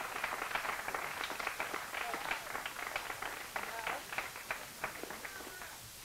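Audience applauding, dying away near the end, with a few voices calling out over the clapping.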